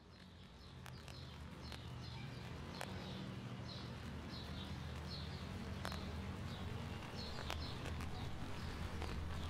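Room-and-street ambience fading in: a steady low rumble with short bird chirps about once a second and scattered sharp clicks.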